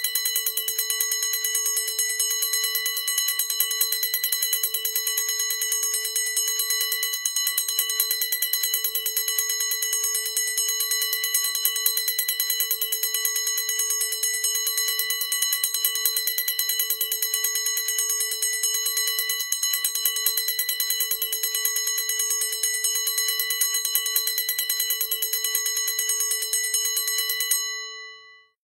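A bell rung continuously by a rapid, even hammering, like an alarm bell. It stops near the end and its ring dies away quickly.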